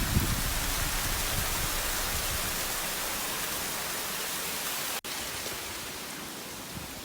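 Steady rushing of a waterfall, an even wash of falling water. It cuts out for an instant about five seconds in, then carries on slightly quieter.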